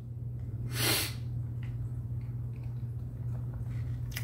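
A man takes one short, sharp breath about a second in, over a steady low hum.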